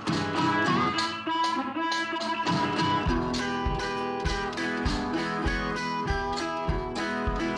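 Outro music: a quick guitar tune of plucked notes, with a steady bass line entering about three seconds in.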